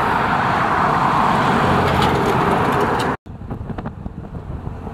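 A van towing a boat trailer driving along a road, a steady rush of tyre and engine noise. About three seconds in it cuts off abruptly and gives way to quieter, uneven road noise of a moving vehicle.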